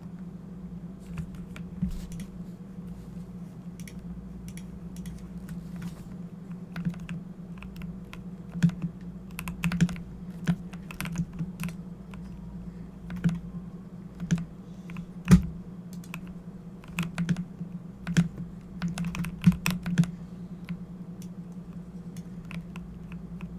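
Typing on a Corsair computer keyboard: irregular runs of key clicks that tail off near the end, over a steady low hum.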